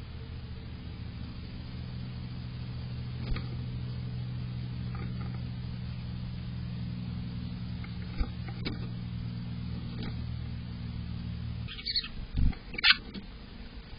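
A steady low hum made of several even tones, which cuts off abruptly near the end, followed by a few sharp knocks and scrapes on the wooden nest box.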